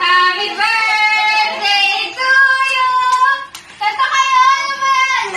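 A high voice singing held notes of about a second each, with a short break about three and a half seconds in, and little accompaniment beneath it.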